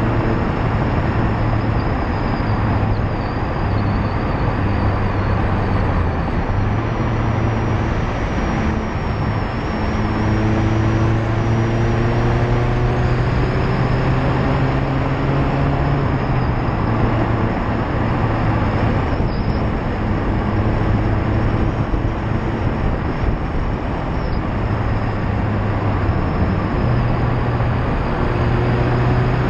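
Loud, steady tyre and road noise picked up at the front bumper of a Mazda MX-5 ND2. Under it, the car's four-cylinder engine and exhaust note rise several times as it accelerates, then drop back at each shift.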